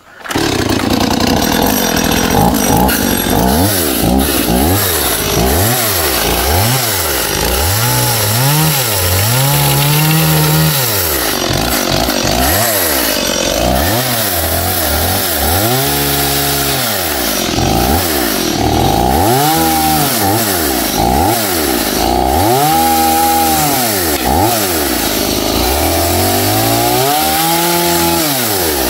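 Chainsaw cutting wood, its engine revving up and falling back over and over.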